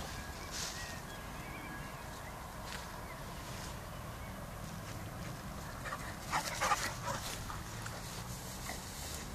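A young cross-breed dog barking a few times in quick succession about six seconds in, over a steady low rumble.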